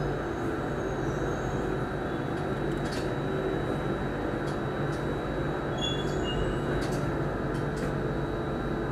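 Singapore MRT Circle Line train running, heard from inside the carriage: a steady rumble of wheels and motors with a faint high whine and a few light clicks and rattles.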